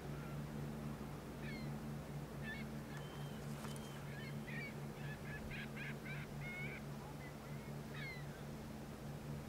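Waterbirds giving short honking calls, a quick run of them in the middle, over a steady low hum. A single faint click comes about three and a half seconds in.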